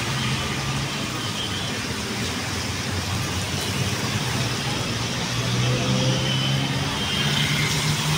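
Road traffic: vehicle engines running and passing, over a steady rumble of street noise.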